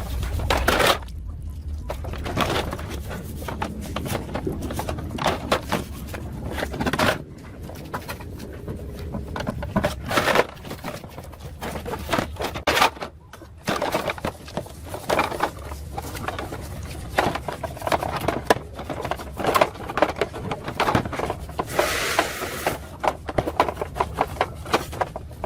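Repeated clicks, knocks and scraping of tools working on motorbike parts, with a short hiss about three-quarters of the way through.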